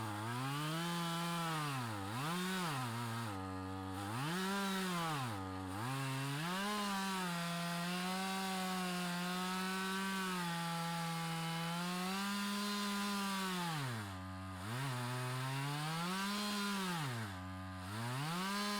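Two-stroke chainsaw in an Alaskan chainsaw mill, ripping a log into slabs. Its engine speed repeatedly rises and sags, then holds steady at high revs for several seconds in the middle before dipping and climbing again.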